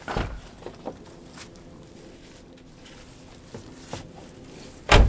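Footsteps and small knocks around a car, then one heavy, deep thump near the end, typical of a car door being shut.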